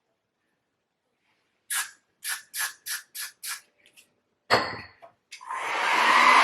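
Six quick spritzes from a hair spray bottle, about three a second, then a click and a rushing noise that swells and holds steady near the end.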